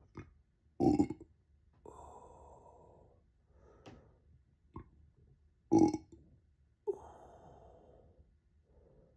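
A person burping on purpose: two loud, short burps about five seconds apart, each followed by a breathy sound lasting about a second, with a few faint small gulps in between.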